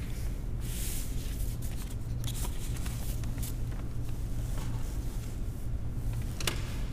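Paper and book pages rustling as they are handled close to a microphone, with scattered small clicks and one sharp tap near the end, over a steady low hum.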